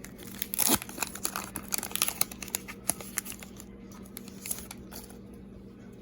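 Trading card pack wrapper crinkling and tearing as it is opened, busiest and loudest in the first second or so, then thinning to light handling noise near the end.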